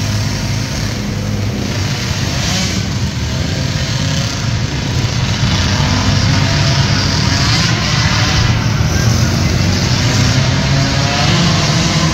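Several small 50–90cc youth ATV engines running and revving as the quads race, the pitch rising and falling with the throttle.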